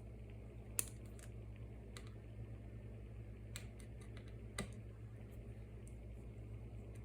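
Small metal repair tools and tiny screws clicking against an opened iPhone's internal parts: a few scattered sharp ticks, the loudest about a second in and another just past the middle, over a steady low hum.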